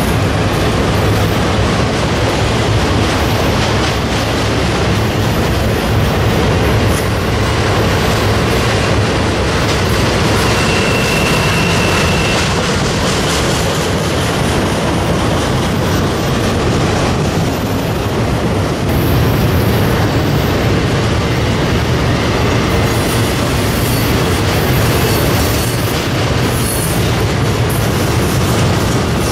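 A long freight train of autorack cars rolling past close by: steady rumble and rattle of steel wheels on the rails, with one brief high squeal about eleven seconds in.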